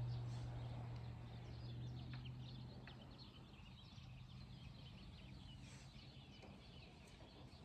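Birds chirping and calling faintly with many short, quick notes, over a low steady hum that fades away over the first few seconds.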